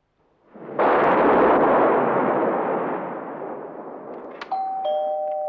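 A loud crash rises about half a second in, then dies away slowly over some four seconds. Near the end a two-tone doorbell chime rings, ding-dong, its two notes held.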